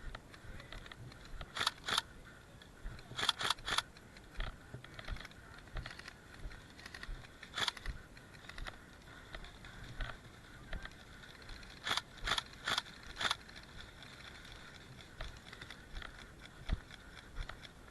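Airsoft guns firing sharp single shots in short groups: two, then three a second later, one in the middle, and a quick string of four near the end.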